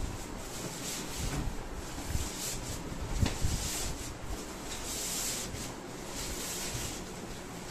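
A synthetic-fabric Reebok sleeping bag being tugged and worked out of its tight stuff sack: the fabric rustles and rubs in uneven swishes, with a couple of dull knocks from the handling a few seconds in.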